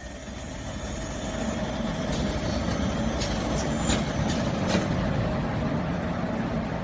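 Automatic brass valve-ball machining machine running: a steady mechanical hum with a constant tone, and a run of sharp clicks in the middle as it works the balls.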